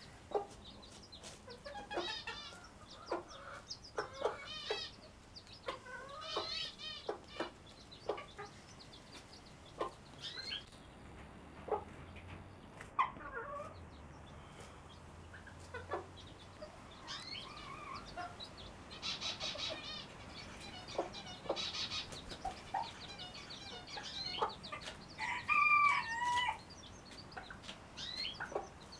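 Young chicks peeping in short, high, wavering chirps scattered throughout, with a domestic hen clucking in lower notes among them. The loudest calls come near the end.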